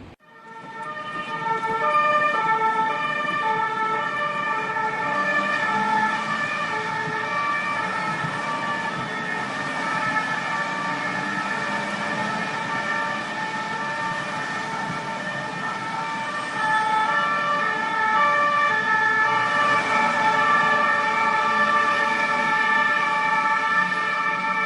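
Emergency vehicle siren sounding a two-tone call that alternates between two pitches, with traffic noise under it; it grows louder about two-thirds of the way through.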